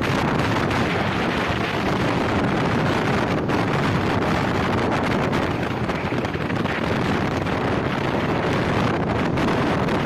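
Steady wind rushing and buffeting over the microphone, an even noise with no pauses.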